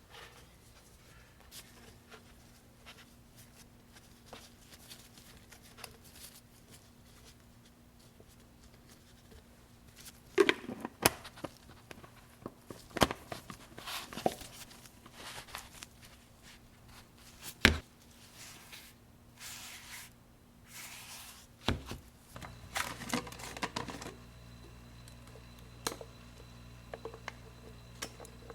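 Kitchen handling sounds while portioning butter: scattered sharp clicks and knocks, the loudest in the middle, between stretches of rustling and crinkling like wrapping being torn or folded. A steady low hum comes in near the end.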